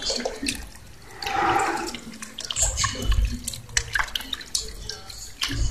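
Water jet from a running mini submersible fountain pump splashing and dripping back into a plastic basin of water, in irregular splashes with a few low thumps.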